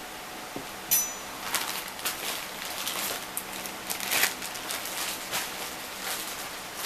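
Kitchen handling sounds while brown sugar goes onto yam patties in a casserole dish: a sharp clink about a second in, then irregular rustling and scraping strokes.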